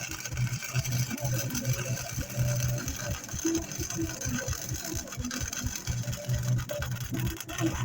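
Welder arc crackling and buzzing in stop-start runs as a bracket is welded on.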